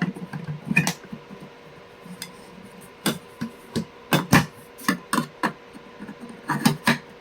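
Irregular hard plastic clicks and knocks, about a dozen, as a vacuum cleaner hose is handled and fitted into its storage place on the upright machine, with a cluster of louder knocks a little past the middle.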